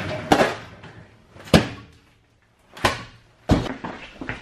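Four sharp knocks and clunks from the old train car's seat fittings being handled. The loudest comes about one and a half seconds in, and there is a short quiet gap before the last two.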